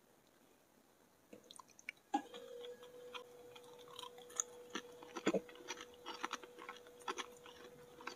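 Quiet chewing of a Cho Cho wafer stick coated in pink strawberry chocolate paste: sparse small crunches and mouth clicks starting about a second in, with a faint steady hum underneath.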